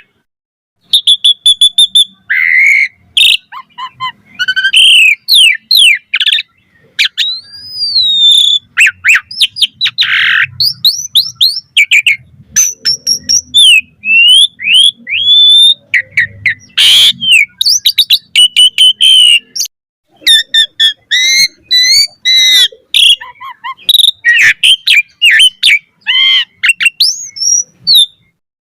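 Asian pied starling (jalak suren) singing a long, varied song of whistles, rising and falling pitch glides and quick chirps, broken by short pauses. A brief harsh, noisy note cuts through about two-thirds of the way in.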